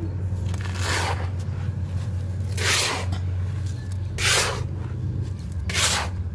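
A hand sweeping dry sand and cement dust across a concrete floor, gathering it into a heap: four scraping swishes about a second and a half apart.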